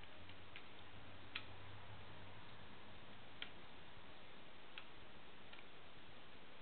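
A few sharp, irregular metal clicks, three clearest, as fingers handle and press the springs and posts of a handmade metal noisebox, over a steady faint hiss.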